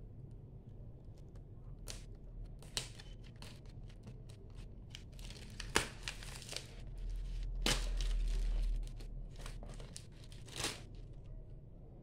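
Plastic shrink wrap being torn and peeled off a DVD case: scattered sharp crackles and crinkling, thickest and loudest in the middle, along with a low rumble of handling.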